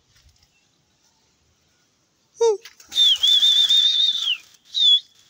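A pigeon keeper whistling to send his flock up: a short sweeping call, then a loud warbling high whistle of about a second and a half with a rushing noise behind it, then one brief whistle near the end. The pigeons' wings are flapping as they take off.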